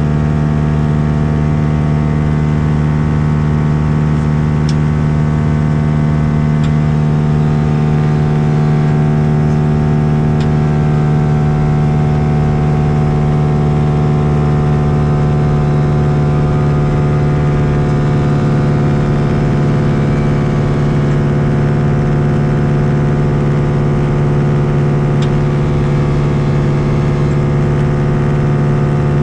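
Lake Buccaneer LA-4-200 amphibian's four-cylinder Lycoming engine and pusher propeller droning steadily on approach, a loud, even hum with little change in pitch.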